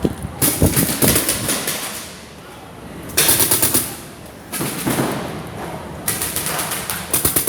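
Paintball markers firing rapidly in several bursts of quick shots, with short pauses between the strings.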